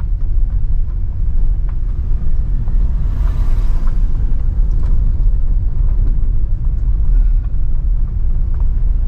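A car driving: steady low engine and road rumble, with a few faint knocks and a brief hiss about three seconds in.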